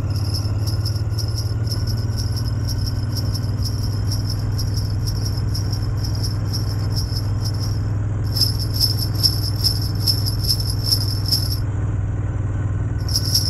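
Sleigh bells jingling in a quick, even rhythm, dropping out twice for a moment, over a steady low hum.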